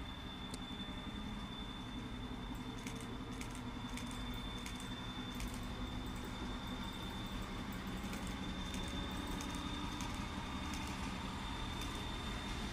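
Electric locomotive running light at low speed and drawing nearer: a steady hum that slowly grows louder, with a thin high steady whine and scattered light clicks.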